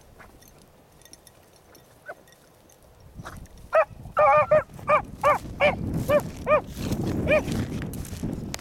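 Beagle pups baying on a rabbit's scent line: after a quiet start, a quick run of short, high chop barks, about three a second, begins around halfway through. A low rumble of wind on the microphone joins under the later barks.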